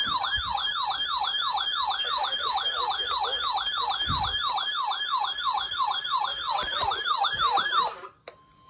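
Electronic alert siren of a weather-alert receiver sounding for a tornado warning: a fast, repeating falling-pitch warble at about three sweeps a second. It cuts off suddenly near the end.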